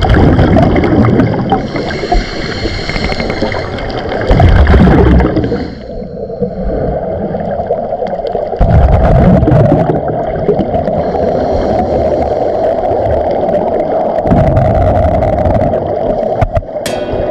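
Muffled gurgling and sloshing of seawater heard through a camera in a waterproof housing, with the sound surging loud and dropping away by turns.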